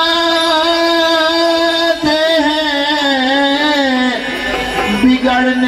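Qawwali music: a long, held melodic line that steps down in pitch a few times, with a wavering ornament about halfway through and a brief dip and return near the end.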